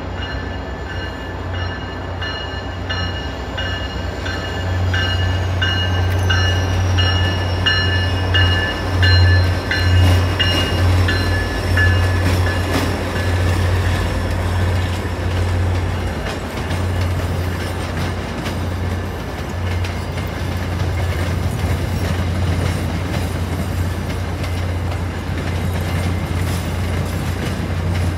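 Passenger train moving slowly through the station: a steady, loud low diesel drone with rolling wheel noise. During the first half, high ringing tones pulse about twice a second, then fade out.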